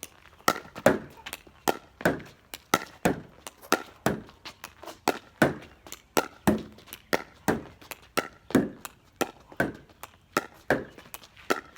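Pickleball rally against a garage door: a quick, uneven run of sharp knocks as the paddle strikes the plastic ball and the ball smacks the door, about two to three hits a second.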